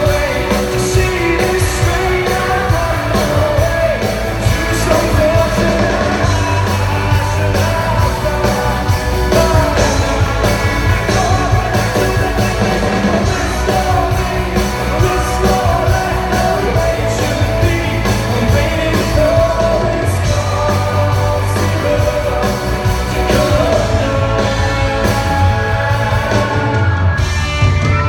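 A man singing a rock song live with instrumental accompaniment, recorded at a concert.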